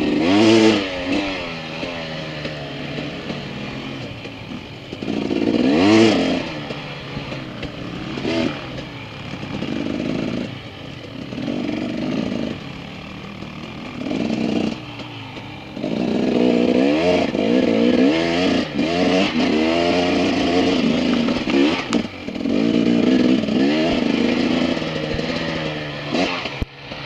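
Dirt bike engines revving up and down while being ridden on a dirt trail, the pitch climbing and falling with each throttle surge and dropping off briefly between pulls. The loudest surges come right at the start and about six seconds in.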